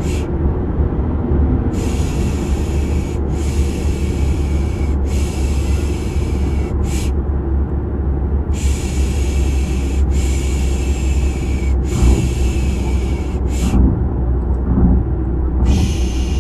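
Steady low rumble of car road noise, with rhythmic 'shh' shushing laid over it. The shushes come in runs of hisses about a second and a half each, with two longer pauses, about seven seconds in and again about fourteen seconds in.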